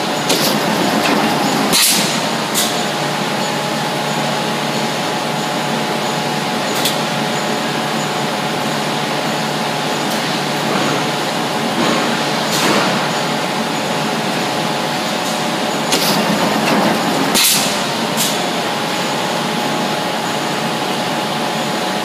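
Steady mechanical hum of a press brake and shop machinery, with sharp metallic clicks and clanks several times as a robot arm handles sheet-metal parts.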